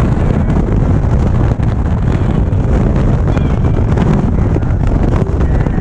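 Wind rushing over the microphone of a motorcycle at highway speed, a steady low rumble, with the Indian Chieftain's V-twin engine running beneath it.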